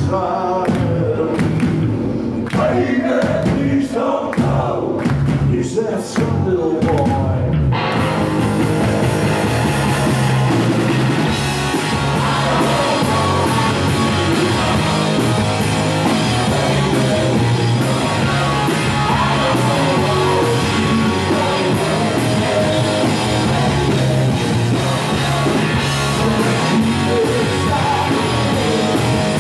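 Live rock band: a male singer over a sparse backing, then about eight seconds in the full band with drums, electric guitar and bass comes in loud and keeps going.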